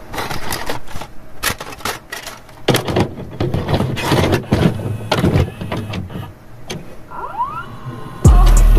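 VHS-style glitch intro sound effects: a run of sharp clicks and crackles with mechanical whirring, a few short rising sweeps about seven seconds in, then a loud low hum that cuts in suddenly near the end.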